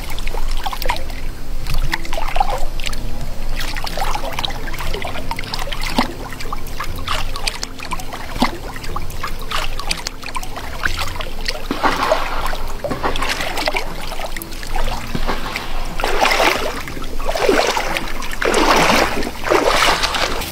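Water splashing and trickling as a person bathing waist-deep moves her hands through the water and lets it run off, with louder rushes of splashing in the second half.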